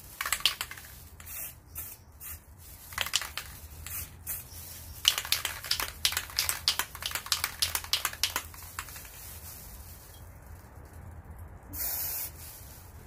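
Aerosol can of silver spray lacquer hissing in many short bursts, sprayed onto newspaper as a test spray to check how the paint comes out.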